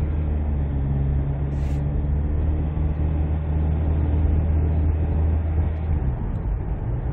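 SsangYong Actyon engine and road noise heard from inside the cabin while driving: a steady low drone that eases off about six seconds in.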